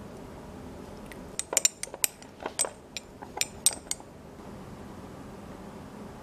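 Chopsticks clinking against the inside of a small ceramic pitcher while stirring wasabi into soy sauce: a quick, irregular run of about a dozen sharp, ringing clinks lasting a few seconds, then stopping.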